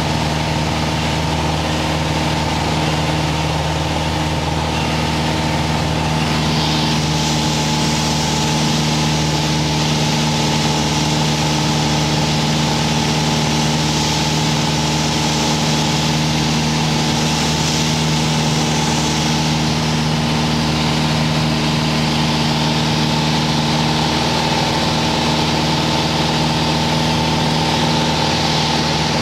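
Single-engine light aircraft's piston engine and propeller droning steadily, heard from inside the cockpit, with a constant rush of air noise that grows a little louder about six seconds in.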